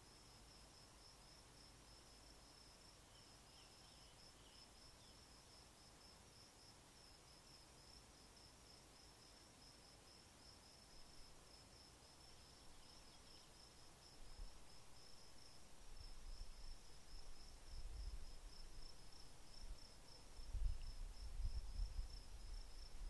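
An insect chirping steadily in a fast, even, high-pitched pulse. From about two-thirds of the way in, low rumbling thumps come and go, louder near the end.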